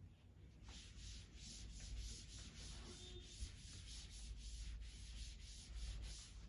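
Quiet, rhythmic rubbing strokes on a lecture writing board, about three or four a second, starting about a second in.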